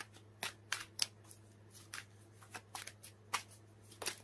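Tarot deck being shuffled by hand: a dozen or so short, irregular card snaps and rustles over a faint steady low hum.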